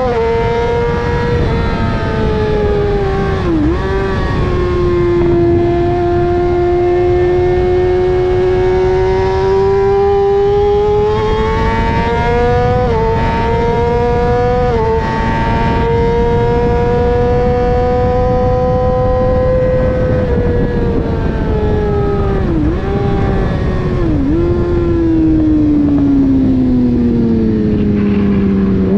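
Motorcycle engine heard from on board at speed, its note holding high and fairly steady with a few brief dips at gear changes, then falling steadily over the last several seconds as the bike slows, with wind rushing past underneath.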